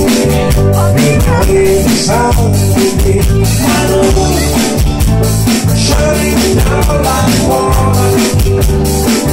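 Live band playing loud rock music on drum kit and electric guitars, with a steady drum beat under a melodic line that bends in pitch.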